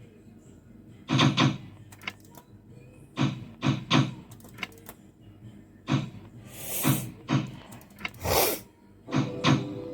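Arcade fruit machine in play: clusters of short clunks and electronic sounds from its reels and buttons, coming every two to three seconds, with a couple of brief hissing bursts in between.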